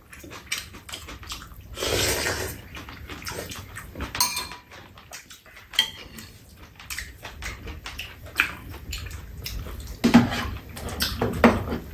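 Metal spoons clicking and scraping against bowls as two people eat, with a sharp ringing clink about four seconds in.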